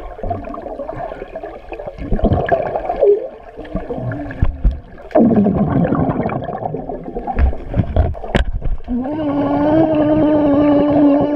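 Muffled sound recorded underwater in a swimming pool: water movement and bubbles close to the microphone, with a dense burst of bubbles blown at it about five seconds in. About two seconds before the end, a person's voice starts holding one steady, hummed note underwater.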